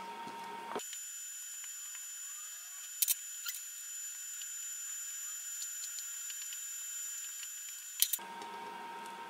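Light clicks of a metal spoon against a plate as water is spread over a tortilla: one about three seconds in and a quick double click near the end. Underneath runs a steady hiss with a faint high whine.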